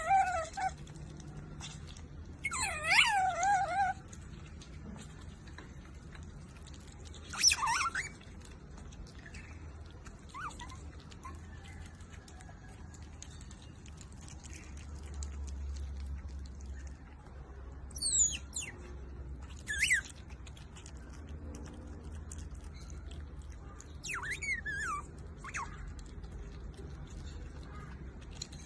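Asian small-clawed otter giving short, high-pitched squeaky calls, a few separate bursts with steep rising and falling pitch sweeps, one longer wavering call a few seconds in. A steady low hum runs underneath.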